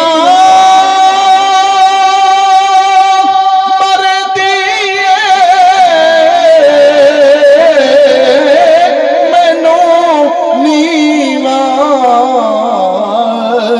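A male reciter singing devotional verse into a microphone. He holds one long high note for about five seconds, then moves into wavering, ornamented runs that sink gradually lower in pitch.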